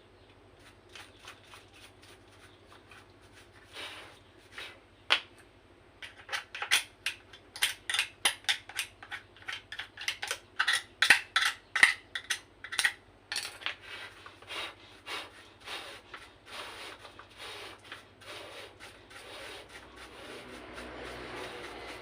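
Metal tools and small metal parts clinking and tapping in a quick, irregular run of sharp clicks, loudest in the middle, with a soft hiss near the end.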